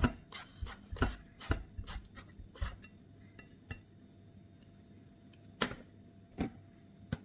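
Knife blade chopping into a green papaya, about two sharp strokes a second for the first few seconds, then three scattered strikes.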